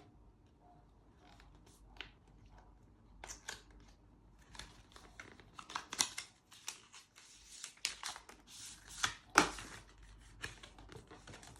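Apple Watch SE box packaging being handled and torn open: a run of short crinkles and rips that get busier after the first few seconds, the loudest about nine and a half seconds in.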